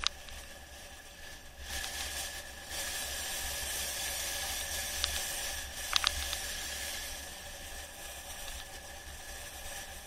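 Rushing wind on a camera microphone and tyre hiss as a mountain bike rolls downhill on a concrete road, growing louder about two seconds in. A few sharp clicks from the bike over bumps, a pair of them about six seconds in.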